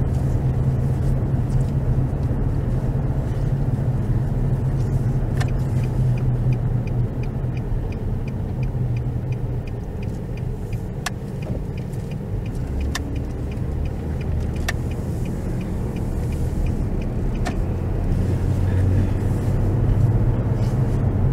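Car interior: steady engine and road rumble while driving, easing off around the middle as the car slows at an intersection, then building again near the end as it pulls away. A turn signal ticks regularly for several seconds during the slowdown, and a few single clicks follow.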